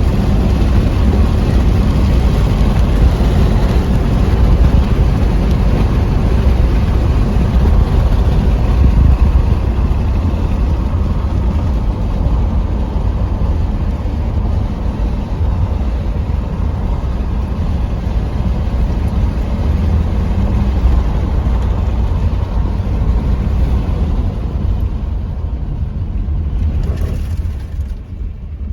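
Steady low rumble of a car in motion, road and engine noise heard from inside, easing off over the last few seconds as the car slows.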